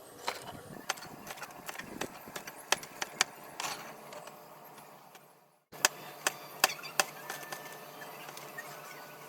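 Knife cutting tomatoes and chillies on a board: irregular sharp knocks, with a brief cut-out a little past halfway.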